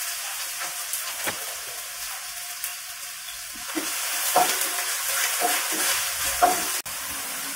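Food sizzling in hot oil in a metal wok as a spatula stirs it. Several short spatula scrapes against the pan come in the second half.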